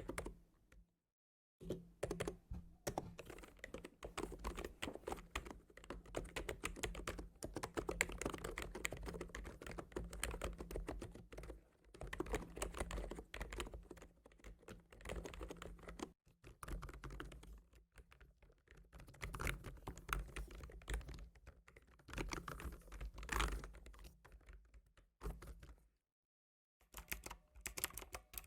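Typing on a computer keyboard: rapid, continuous keystrokes that stop twice for about a second, once just after the start and once near the end.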